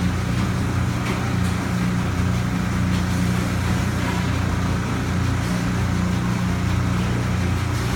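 Steady low mechanical hum with a few fixed low pitches, like a motor or machine running without change.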